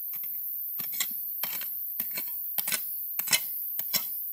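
Short-handled pick chopping into stony red soil to dig a hole, a quick irregular run of sharp strikes about three a second, over a steady high hiss.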